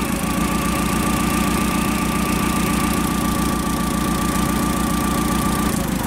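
Spark-ignition engine of a Caterpillar V50D forklift idling with a misfire, and its speed drops noticeably when one spark plug wire is pulled off in a cylinder balance test, showing that this cylinder is firing.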